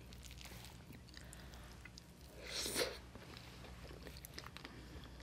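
Faint, close-miked chewing and soft mouth clicks of a person eating with closed lips. There is a brief louder sound about two and a half seconds in.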